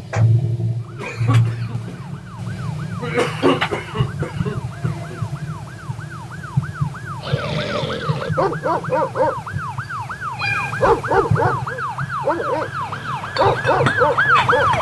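A kinetic painting's built-in sound and mechanism running: an electronic siren-like tone warbling up and down about four times a second, over a steady low hum, with scattered clicks and clinks.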